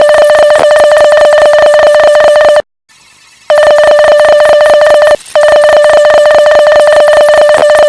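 Morse code sent as a single high beeping tone, keyed very fast, with a pause of about a second roughly three seconds in and a short break a little later.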